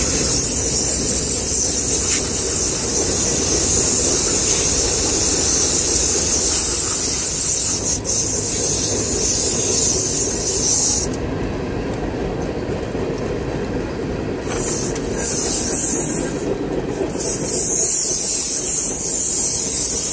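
Electric fillet knife running, its reciprocating blades buzzing and rasping as they saw through a striped bass's flesh and rib bones.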